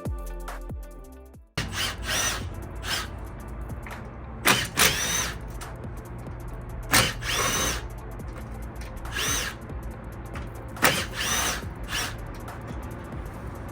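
Electric drill run in short trigger bursts, about eight times, each burst spinning up with a rising whine, likely driving bolts out of the car's front end. Electronic music plays for the first second and a half and then cuts off suddenly.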